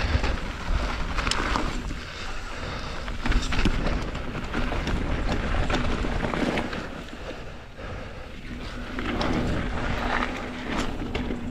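Mountain bike riding down a dirt trail: wind buffeting the microphone over the rumble of tyres on the ground, with scattered knocks and rattles from rough terrain and a steady low hum through much of it.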